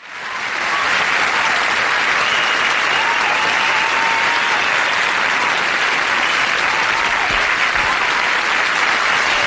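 Studio audience applauding, fading up within the first second and then holding steady, with a few thin high cries audible above the clapping.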